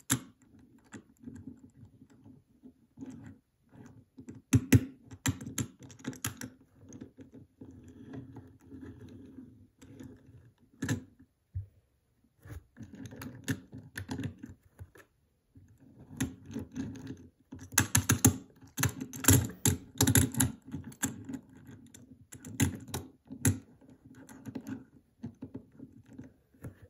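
Hot Wheels die-cast toy car pushed back and forth by hand on a hard tabletop: its small wheels roll with a low rumble in stretches of several seconds, broken by sharp clicks and taps, with a short pause about eleven seconds in.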